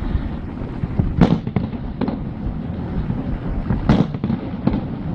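Fireworks display going off: two sharp, loud shell bursts about a second in and about four seconds in, with smaller bangs between them, over a steady low rumble.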